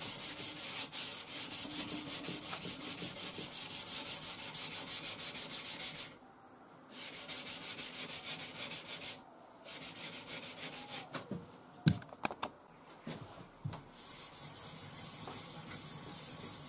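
Puukko blade stroked quickly back and forth over a worn abrasive grinder belt, a steady rasping rub in even strokes. The rubbing stops twice briefly, and there are a few knocks and one sharp click about two-thirds of the way in, then the strokes resume.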